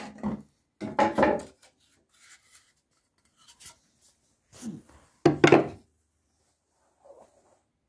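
A few short knocks and rubs of handling against wood, in separate clusters with quiet gaps between them; the loudest comes a little past halfway.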